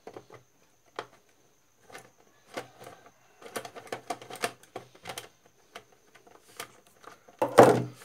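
Screwdriver clicking and scraping as the screws of a mixer grinder's plastic back panel are undone, with small clatters of the plastic housing being handled and one louder knock near the end.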